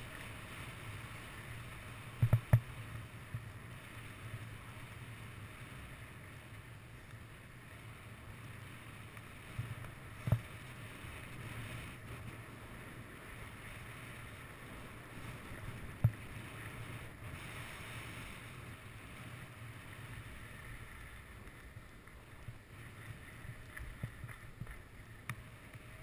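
Skis sliding over packed snow, a steady hiss with a low rumble of wind on a GoPro's microphone. A few sharp knocks break through it: two close together a couple of seconds in, then single ones later.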